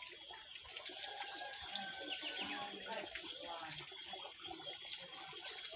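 A steady rush of running water, with birds chirping over it.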